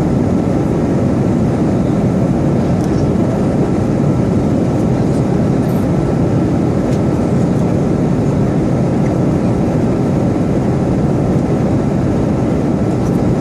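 Steady cabin noise of an airliner in flight: an even noise of engines and airflow that never changes in level, with a thin constant tone above it.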